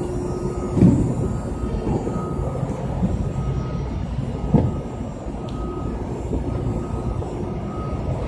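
Steady low rumble of warehouse background noise, with a faint high beep repeating every second or so and two dull thumps, one about a second in and one past the middle.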